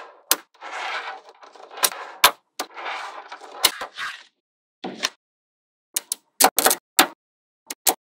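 Small magnetic balls clicking and snapping together as strips of them are pressed onto a block of magnet balls, with rattling clatter between the sharp clicks and a quick run of clicks near the end.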